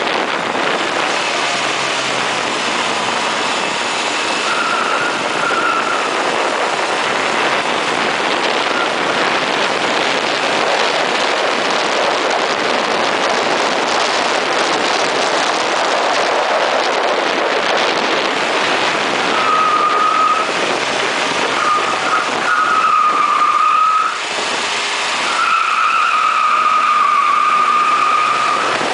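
1980 Ford Fiesta SuperSport at speed on a race circuit, heard from on board: a steady rush of wind and road noise, with the tyres squealing through corners, briefly about five seconds in and again for most of the last ten seconds.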